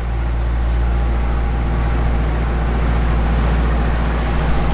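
A tour boat's engine running steadily under way, heard from on board as a low, even hum.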